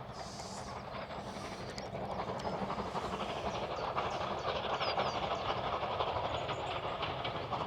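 Steam train running along the line, a steady rumble and clatter of its wheels on the rails that grows a little louder over the first few seconds.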